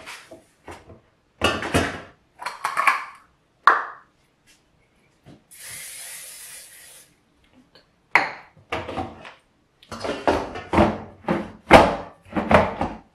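Clatter and knocks of the air fryer basket and pastries being handled. About five and a half seconds in comes a short hiss of cooking-oil spray lasting about a second and a half. Near the end a quick run of loud knocks and clicks comes as the basket is pushed back into the air fryer.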